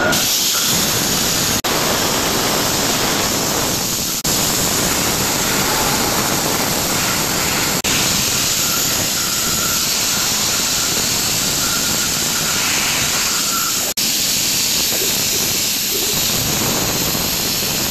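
Vertical machining center milling a metal plate with an end mill under flood coolant: a steady hissing noise of cutting and coolant spray with a faint high whine at times, cutting out briefly four times.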